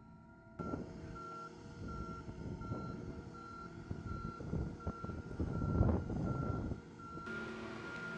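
Motion warning beeper on the heavy-load transporter carrying the rocket tank, beeping in one high tone about twice a second over a rumbling vehicle noise that is loudest about six seconds in. Near the end the beeping gives way to a single steady tone.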